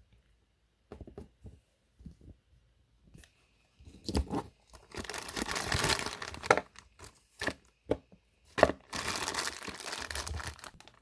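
Toy packaging being torn open and crinkled by hand: a few light clicks at first, then two stretches of tearing and crinkling with sharp snaps, about four seconds in and again about nine seconds in.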